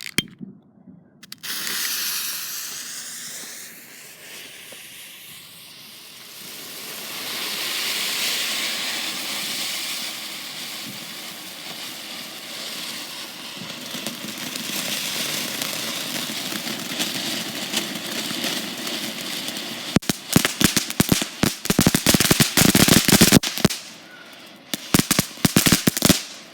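Consumer firework fountain (Phantom Fireworks' Confetti Lights) going off: a loud spraying hiss with wavering whistles in its first few seconds. About 20 s in, it breaks into several seconds of dense, rapid crackling, with a short second burst of crackles near the end.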